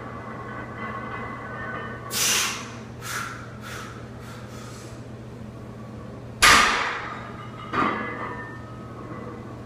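A barbell loaded with about 455 lb of iron plates dropped onto a rubber-matted lifting platform between deadlift reps: one heavy thud about six and a half seconds in, the loudest sound, then a smaller knock just over a second later. Before that, near the lockout at two to four seconds in, come a few short hissing sounds.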